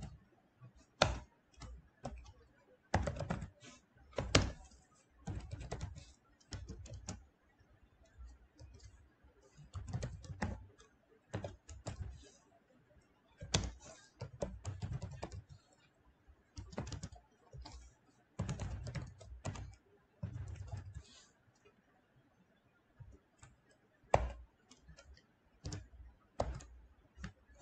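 Typing on a computer keyboard in short runs of quick key clicks, with pauses of a second or two between runs.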